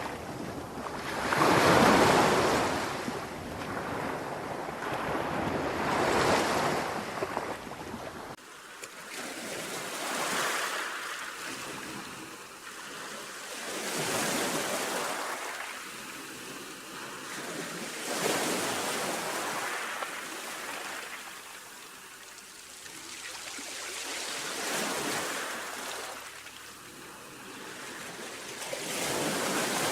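Sea waves washing onto a shore, each one swelling and falling away about every three to four seconds. A low rumble under the surf stops about eight seconds in, leaving the waves thinner and quieter.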